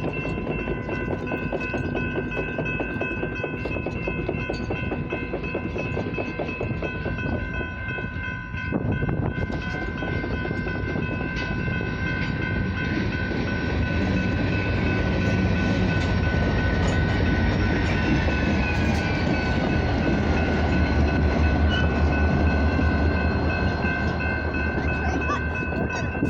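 Local train's diesel locomotive passing, its low rumble growing louder over the second half, with steady high-pitched tones held throughout and a tone that falls in pitch about two-thirds of the way in.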